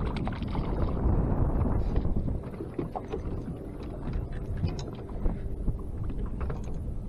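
Wind buffeting the microphone and choppy water against a boat, with scattered light clicks and rattles from a spinning rod and reel as a small black crappie is reeled in and swung aboard.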